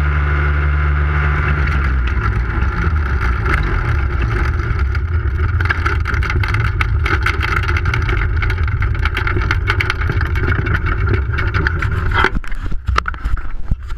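Powered parachute trike's engine and pusher propeller running steadily at low power while the trike rolls over rough ground, with rattles and wind on the microphone. About twelve seconds in the engine sound drops away suddenly, leaving choppy wind buffeting and rattling.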